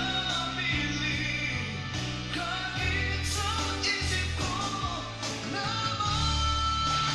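A Tagalog pop-rock song playing through a Technics SU-V6X amplifier and Yamaha NS-451 speakers: a lead melody that bends in pitch over a steady bass line and rock rhythm, with no lyrics heard.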